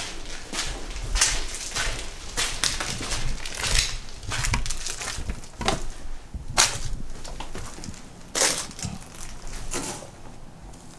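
Footsteps crunching irregularly over a floor littered with broken plaster and paper, at a walking pace.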